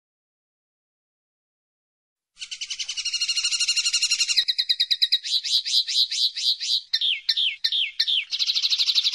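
Common linnet singing, starting about two seconds in: fast twittering trills and buzzy rattles, then a string of quick down-slurred notes, and a final rapid trill that cuts off abruptly.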